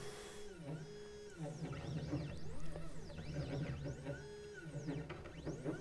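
Stepper motors of a CNC 3018 PRO driving a blue laser head through an engraving pass: whining tones that rise in pitch, hold steady, then fall again with each move, repeating several times.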